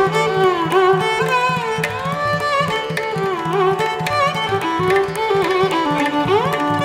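Background instrumental music in an Indian classical style: a melody sliding between notes over a steady drone, with light drum strokes.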